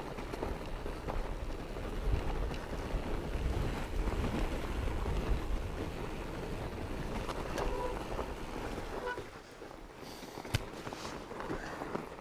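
Wind buffeting the microphone while riding a fat bike, a steady low rumble with scattered knocks and clatters from the bike. It eases off about nine seconds in.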